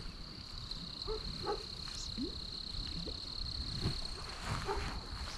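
Pond ambience: a steady high-pitched insect drone with scattered short animal calls, likely frogs, over it.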